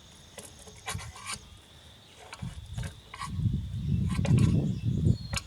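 Rough rubbing and scraping as the plugged, moldy air cleaner element of a Briggs & Stratton engine is handled, its filter rotted away. A few light clicks come first, and the rubbing is loudest in the second half.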